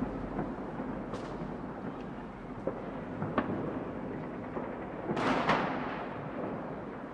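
New Year's Eve fireworks: a continuous crackling rumble of distant bangs, with a few sharp cracks and a louder boom about five seconds in that fades away over a second or so.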